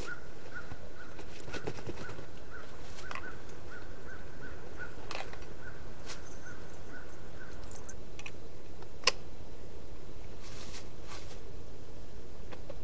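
A bird calling a steady series of short, high notes at one pitch, about two a second, stopping about eight seconds in. Under it come clicks and rustles of a backpack and its straps being handled and shouldered, with one sharp click about nine seconds in.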